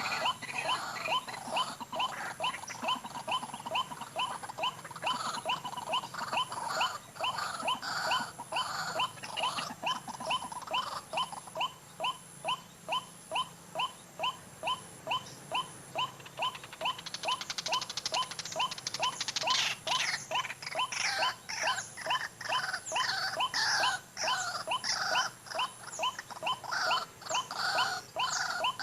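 White-breasted waterhen (ruak-ruak) calls: a long series of short repeated notes at about three a second. Partway through, a rapid trilling rattle joins in, followed by louder, more varied calls.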